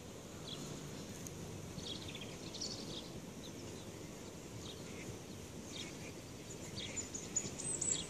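Scattered short bird chirps over a steady low background rumble.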